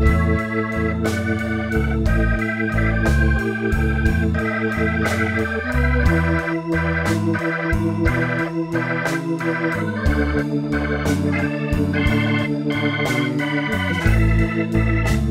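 Background instrumental music with a steady beat and held chords that change every few seconds.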